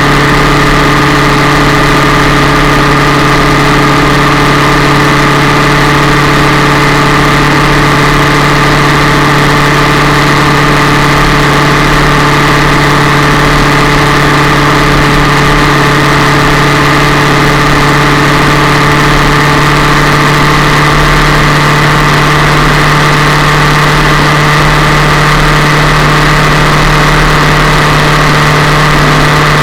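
Yamaha MT-07's parallel-twin engine running loudly at a steady, unchanging engine speed, picked up close to the engine by a camera on the frame slider.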